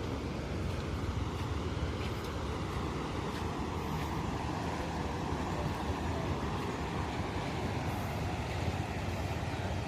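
Floodwater rushing steadily through the fully opened gates of a river weir, a constant low rush of water with no break.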